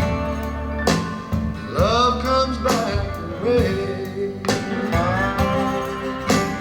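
Live acoustic blues-rock band music played back through a single-ended tube amplifier and two-way transmission-line loudspeakers. Acoustic guitars lead, with a melody line that bends in pitch in the middle.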